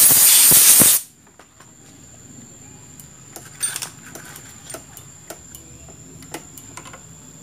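Compressed-air blow gun blasting onto a motorcycle's front disc brake caliper, a loud hiss that cuts off sharply about a second in; the caliper is being blown dry to check whether brake fluid still seeps. Afterwards, light scattered clicks and taps of a metal wrench being handled at the caliper.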